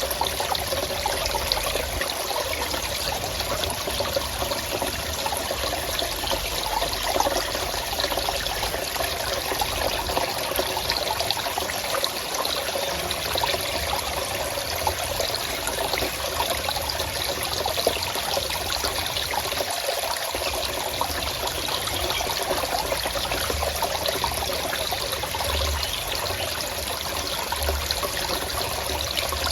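Forest stream flowing and trickling steadily.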